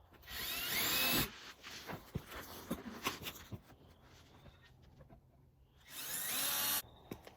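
Power drill boring pilot holes through the plastic of a car's rear diffuser: two short bursts about five seconds apart, the motor's pitch rising as it spins up each time.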